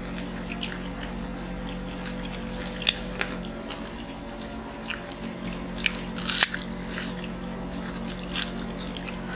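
Close-miked chewing and biting of crispy fried chicken, with scattered sharp crunches and mouth clicks, the strongest about three and six and a half seconds in.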